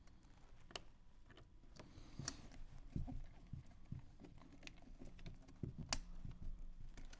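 Faint, irregular clicks and taps of a Hunter Douglas vertical blind's plastic cord tensioner being handled and screwed back onto the wall with a hand screwdriver, with a few sharper clicks and soft low knocks.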